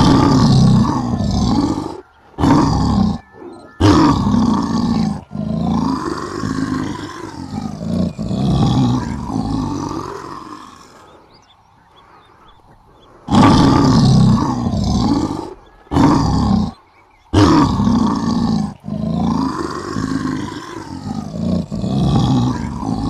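Lion roaring and growling in a series of long, loud calls that rise and fall in pitch, broken by short pauses and a quieter lull about halfway. The same sequence starts over about 13 seconds in, as if looped.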